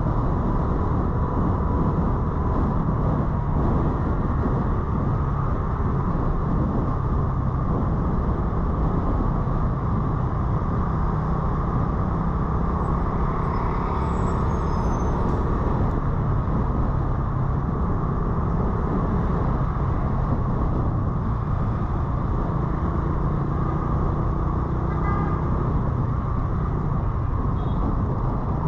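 Motorcycle running through city traffic: a steady engine and road noise, with other vehicles around it and a brief high squeal about halfway through.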